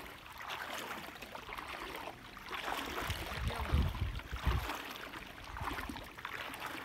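Lake water lapping and splashing close by, with low rumbling surges about three to four and a half seconds in.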